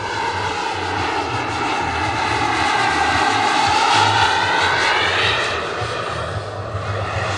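Turbine-powered scale RC model helicopter (Eurocopter EC135) flying: the steady high whine of its small turbine engine over the rotor noise. It grows louder to about four seconds in, then eases off.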